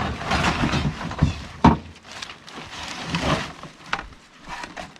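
Old parts and debris being rummaged through and shifted, with scraping, rustling and clattering and a sharp knock a little under two seconds in, the loudest sound.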